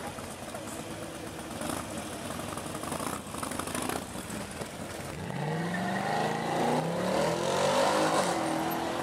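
Mercedes-Benz C-Class saloon's engine pulling away and accelerating. About five seconds in its pitch rises steeply, and it grows louder toward the end.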